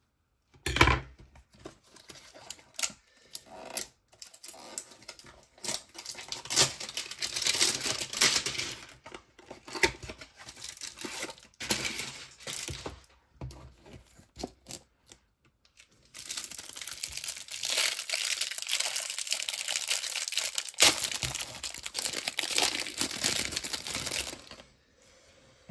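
Topps 2021 Series 2 baseball card packaging being torn open and crinkled by hand. The crinkling comes in irregular bouts with short pauses. A longer unbroken stretch of crinkling runs through the second half.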